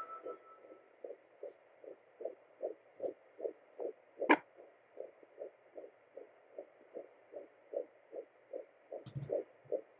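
Fetal heartbeat at 13 weeks picked up by a Sonoline B home fetal Doppler: a fast, even pulse of about two and a half beats a second (around 155 a minute) over a steady static hiss, sounding faint and far away. A sharp knock comes about four seconds in, and a low bump near the end.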